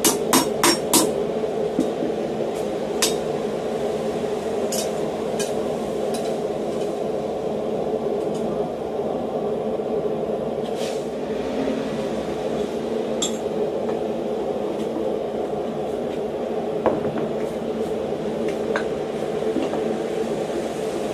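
Hand hammer blows on steel at the anvil: four quick strikes in the first second, then scattered single blows a few seconds apart, over a steady rushing noise.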